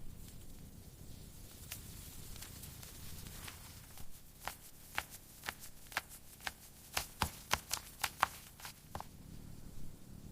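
A run of sharp, irregular taps over a low steady rumble, sparse at first, then quicker and louder from about four seconds in before thinning out near the end.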